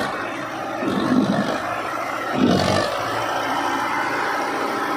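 Diesel tractor engine revved hard in two surges, about a second in and again midway, then held at high revs, puffing black smoke. It is driving the hydraulic tipper that raises the silage-loaded trailer.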